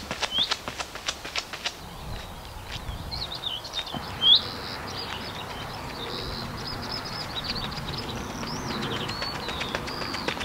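Running footsteps on a gravel path, about three strides a second, fading out over the first two seconds as the runner moves away. Then wild birdsong: repeated high chirps and warbles, with one louder note about four seconds in.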